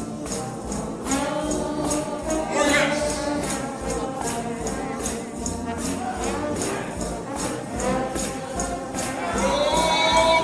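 Trombone shout band playing gospel music: sustained brass chords over a steady low beat, with tambourines shaking in an even rhythm.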